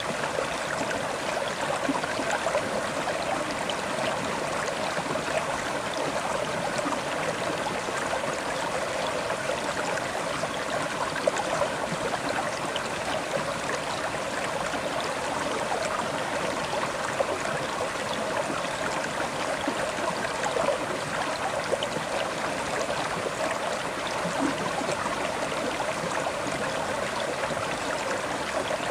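River water flowing and burbling steadily over stones, with small irregular splashes.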